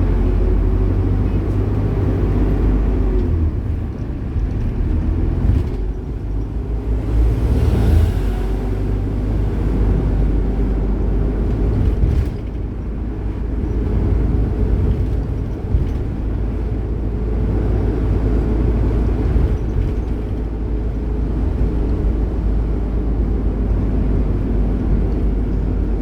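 Bus engine running steadily with road rumble, a continuous low drone with a faint engine hum over it.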